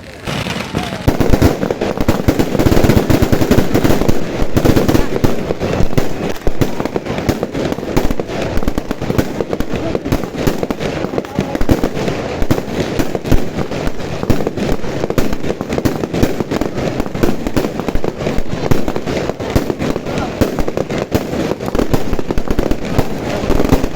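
Fireworks going off in a dense, continuous barrage of rapid bangs and crackling, many per second, that starts just after the opening.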